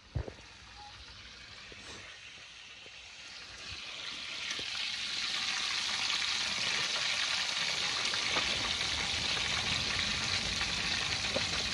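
Fish (mojarra) frying in hot oil: a single thump right at the start, then the sizzle swells over the next few seconds and settles into a loud, steady hiss.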